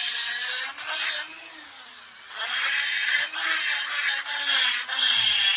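High-speed rotary tool grinding the ports of an aluminum chainsaw cylinder, its motor pitch wavering as it bears on the metal. The grinding lets up for about a second shortly after the start, then resumes.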